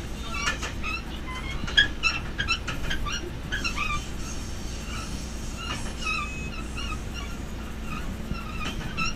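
Diesel railcar running along the track, heard from the driver's cab as a steady low rumble. Many short high chirps come and go over it.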